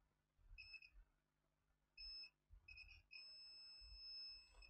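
Multimeter continuity beeper sounding faintly as the probes touch a removed rectifier diode: a few short, broken beeps, then one long steady beep from about three seconds in, which marks the diode as shorted.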